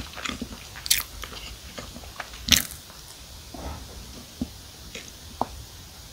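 A person biting and chewing a chocolate s'more cookie filled with marshmallow, with sharp crunchy bites about a second in and, loudest, about two and a half seconds in, then softer, sparser mouth clicks.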